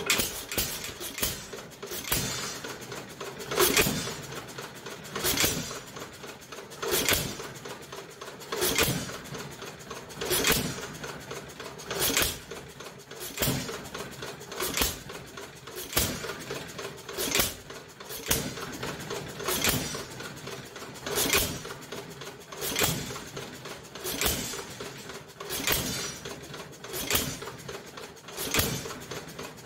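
Nelson Brothers hit-and-miss engine running on its first start, fired by a battery and coil: a loud firing pop about every one and three-quarter seconds, with lighter clicking between the firings.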